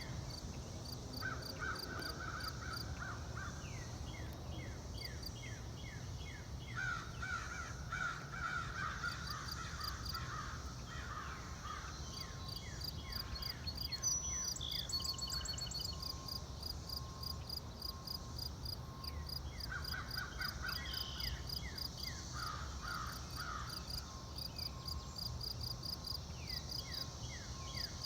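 Outdoor field ambience with birds calling: bouts of harsh, rapidly repeated calls come and go several times, over steady high-pitched pipping and a low background rumble.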